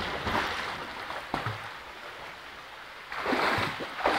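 Water splashing as swimmers move through a rock pool: a splash that dies away over the first couple of seconds, then a louder rush of splashing about three seconds in.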